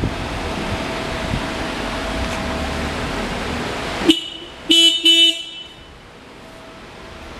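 Motorcycle horn on a 1999 Yamaha XVS650 Classic tested: a brief tap about four seconds in, then two short beeps close together, over a steady hiss of background noise.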